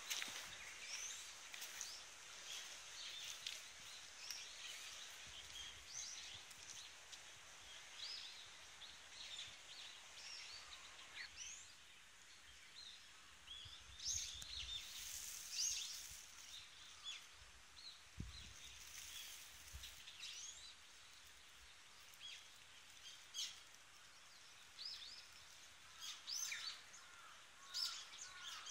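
Small birds chirping and singing, with many short high calls scattered throughout, over faint steady outdoor background noise.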